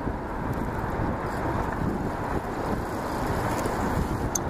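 Wind buffeting the microphone: a steady rushing noise.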